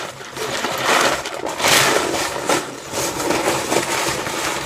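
Plastic Lego bricks clattering and rattling as hands rummage through a pile of loose pieces, with many small clicks running together.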